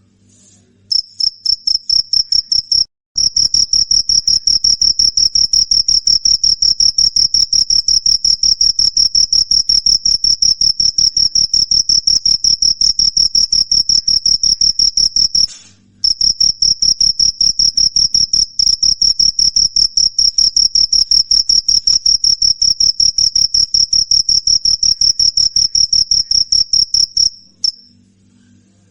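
Cricket chirping: a high, shrill trill in rapid, even pulses. It breaks off briefly twice, about 3 and 16 seconds in, and stops near the end.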